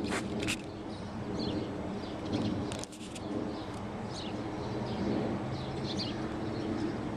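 Outdoor ambience: a steady hum of distant traffic with birds chirping briefly every second or two.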